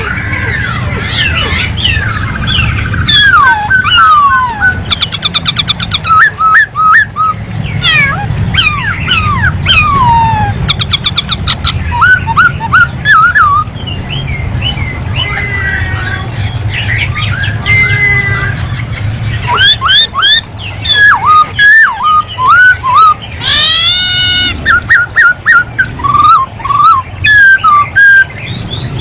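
Black-throated laughingthrush (poksay hongkong) singing in full voice: a long, varied run of loud whistled phrases, slurred rising and falling notes and very fast trills, over a steady low hum.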